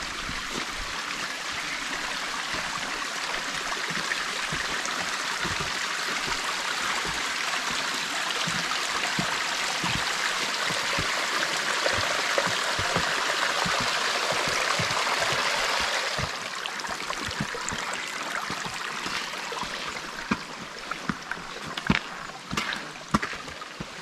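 Mountain stream rushing steadily, dropping suddenly to a lower level about two-thirds of the way through. A few sharp clicks and knocks near the end.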